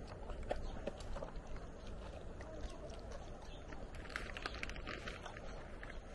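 Steady wind rumble on the microphone, with scattered small clicks from dogs chewing jerky, thickest a few seconds in, and a Labrador panting.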